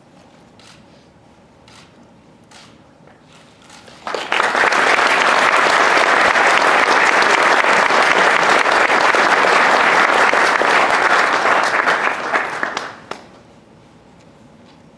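Audience applauding, starting suddenly about four seconds in and dying away about nine seconds later, with a few faint clicks before it.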